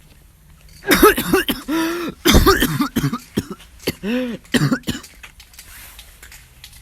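A coughing fit: a quick run of loud coughs starting about a second in and ending about five seconds in, several of them with a pitch that rises and falls.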